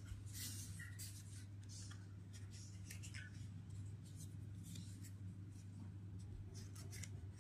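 Faint, irregular scratchy rubbing strokes over a steady low hum.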